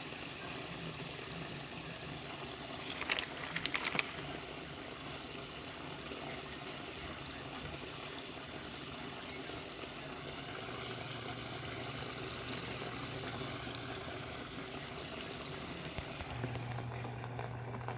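Steady trickling of running water, with a few short clicks about three to four seconds in and a low steady hum that comes in about halfway and grows stronger near the end.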